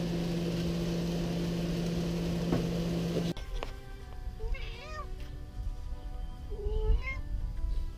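Food sizzling in a skillet on a stove, with a steady hum under it, stopping suddenly about three seconds in. Then a domestic cat meows several times over soft background music.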